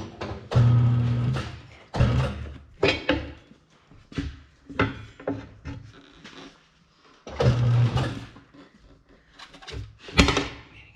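Tire being worked onto a wheel on a tire machine: repeated metal clanks and scraping of rubber and tools, with a steady low hum lasting about a second twice, shortly after the start and again past the middle.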